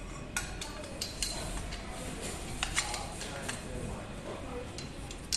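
Scattered light metallic clicks and clinks from small bolts, nuts and steel frame tubes of a pull-up station being handled on a tile floor.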